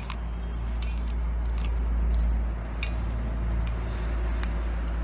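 Chopsticks clicking and tapping irregularly against a stainless steel bowl while tossing coated cut long beans, with the beans rustling, over a steady low rumble.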